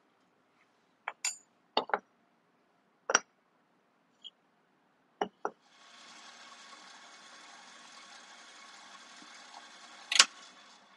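Several light clinks of a small metal spoon against porcelain. Then a KitchenAid stand mixer with a stainless steel pastry beater starts and runs with a steady hum for about five seconds, stirring dry flour. A sharp click comes near the end, just before the motor stops.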